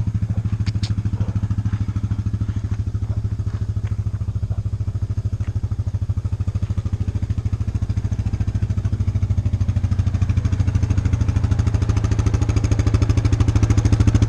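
An engine running steadily at a constant speed, with a low, rapid pulsing; it grows a little louder in the last few seconds. A few light clicks about a second in.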